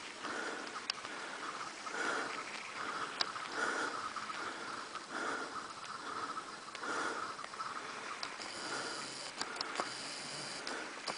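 A person breathing hard and rhythmically close to the microphone, about one breath every second and a half, with a few faint ticks.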